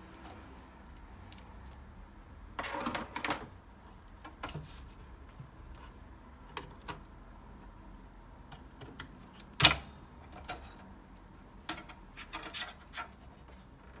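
Cables being unplugged from the motherboard of a Dell OptiPlex 790 small-form-factor desktop: scattered small plastic clicks and rustling. One sharp click comes about two-thirds of the way through, the loudest sound in the stretch.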